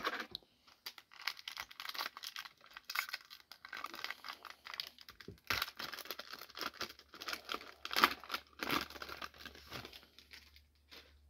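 Foil wrapper of a 2023 Donruss football trading-card pack crinkling and tearing as the pack is ripped open by hand. The crackles are irregular and loudest about eight seconds in.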